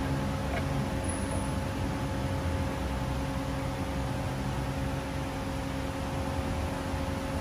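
Steady mechanical hum with a constant pitch over an even hiss, like a running fan or machine in a workshop; no distinct tool clicks stand out.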